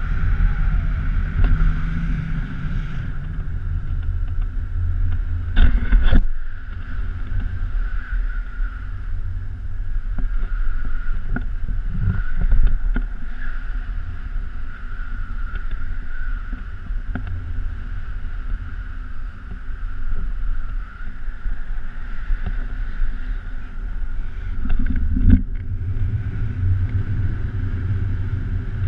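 Airflow buffeting the microphone of a pole-mounted GoPro Hero3 during a paraglider flight: a steady low rumble with a faint steady whistle above it, and two louder gusts, about six seconds in and near the end.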